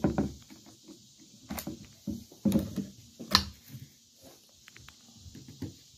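A .22 rifle's action being worked by hand to clear a jam: a string of separate metallic clicks and knocks, the sharpest about three and a half seconds in.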